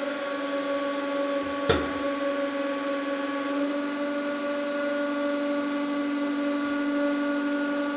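A 150-ton hydraulic press's pump humming steadily as the ram bears down on a wood auger drill bit, with a single sharp crack a little under two seconds in. The bit is too soft to shatter and bends under the load instead.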